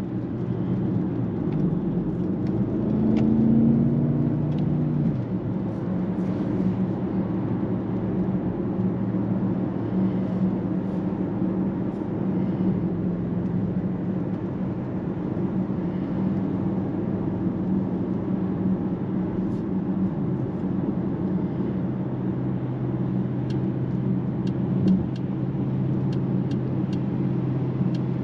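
Mercedes-AMG GLE 63 S's twin-turbo 4.0-litre V8 under way, heard from inside the cabin over steady road noise. About three seconds in, the engine note rises and grows louder under throttle, then falls back. About twenty seconds in it settles to a lower, steady note.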